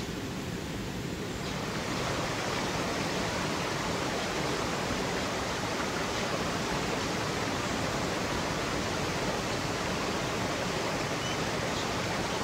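Small creek spilling over a low rocky cascade: a steady rushing of water that swells in about two seconds in and then holds even.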